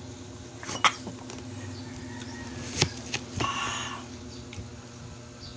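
Eating sounds from leche flan taken with a metal spoon from a plastic tub: two sharp clicks, about a second in and near the three-second mark, and a short breathy burst just after, over a steady low hum.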